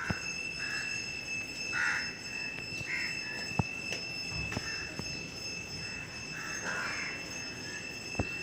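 Crows cawing now and then over a steady high-pitched whine, with a few sharp clicks.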